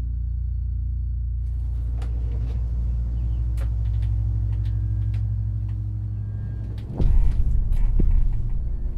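A steady low rumbling drone with scattered small clicks and knocks over it. About seven seconds in, a louder, rougher low rumble starts suddenly.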